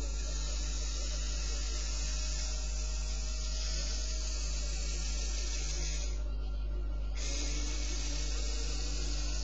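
Small LEGO Power Functions electric motors whirring steadily over a constant low electrical hum. The whir cuts out for about a second partway through, then picks up again.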